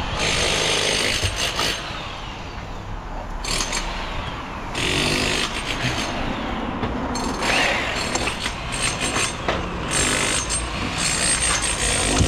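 Construction work noise: a power tool runs in bursts of one to two seconds, stopping and starting, over a steady low rumble.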